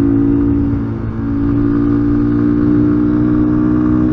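Engine of a Rokot Highlander 250 cc enduro motorcycle running under way at steady revs, with a brief dip about a second in.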